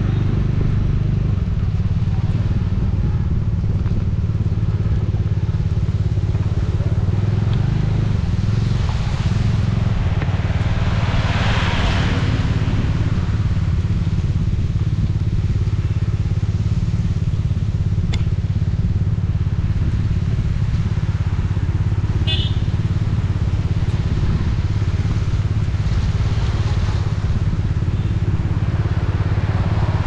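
Bajaj Dominar 400's single-cylinder engine and exhaust running steadily under way on a ride, a strong even low drone. A swell of rushing noise rises and fades near the middle.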